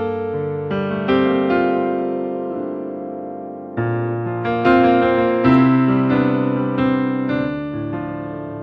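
Solo keyboard music: slow, sustained chords on a piano-like instrument, each struck and left to ring out and fade, with new chords every second or so.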